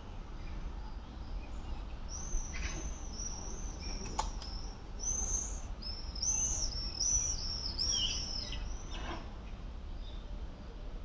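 A small bird chirping, a run of short, high, repeated notes lasting several seconds, over a steady low hum, with a few faint knocks.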